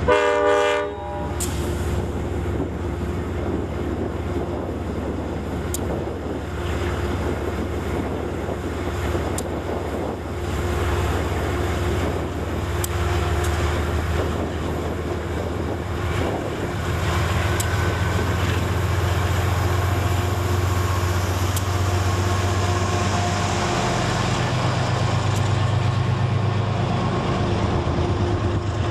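Amtrak GE Genesis P32AC-DM diesel locomotive finishing a horn blast about a second in, then its engine running with a steady low drone as the train rolls past. The drone grows louder in the second half as the locomotive and its passenger cars come alongside, with occasional clicks from the wheels.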